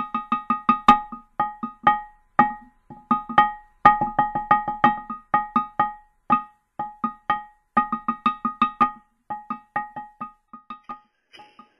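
A struck stone ringing one short pitched note again and again, like a lithophone. The strikes come in quick irregular runs of several a second, and each note dies away fast.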